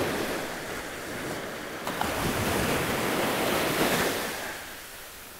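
Small surf waves breaking and washing up the sand at the shoreline, swelling twice, the second and longer wash about two seconds in. Wind buffets the microphone, and there is a single light click about two seconds in.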